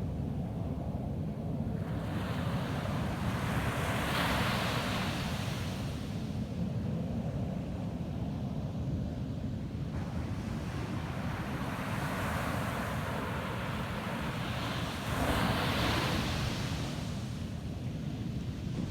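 Ocean waves breaking on a beach: three waves crash and wash in, about a second in, near the middle and again near the end, over a steady low rumble of surf.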